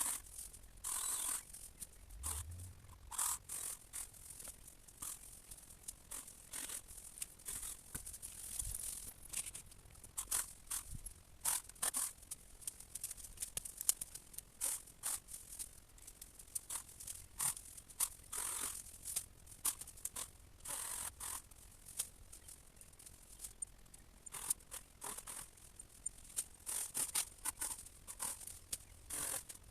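Leafy shrub branches rustling and scraping, with irregular sharp snips and cracks, as the top of a large viburnum is cut out by hand.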